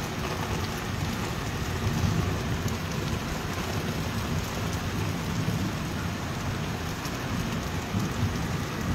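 Heavy rain pouring steadily onto a wet concrete rooftop: a dense, even hiss with no breaks.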